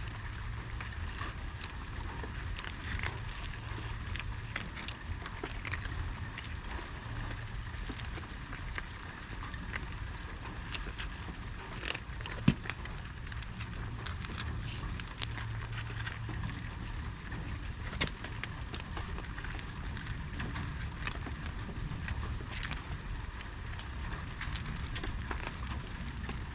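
Steady low rumble with many small scattered clicks and ticks, and a sharper knock about twelve seconds in.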